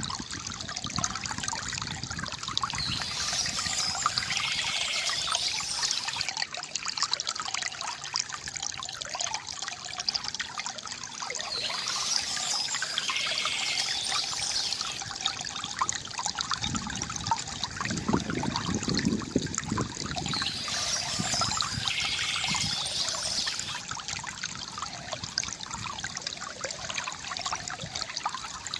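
Water from a bamboo fountain trickling and splashing steadily. A brighter, hissier passage comes back about every nine seconds, and there is a deeper swell for a few seconds past the middle.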